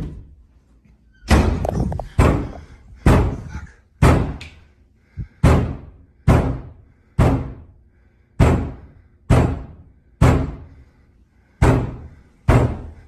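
A wooden door banging hard again and again, about one heavy bang a second, each bang dying away briefly before the next.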